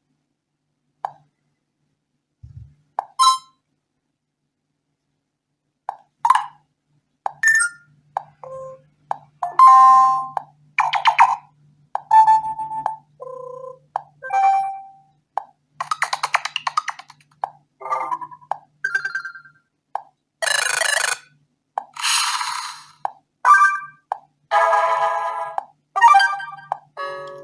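Preset notification and message tones of a BQ Contact phone played one after another through its speaker: a rapid series of separate short electronic sounds, some clear tones and some noisy, each under about a second with brief gaps between them. The first few seconds hold only a couple of faint blips.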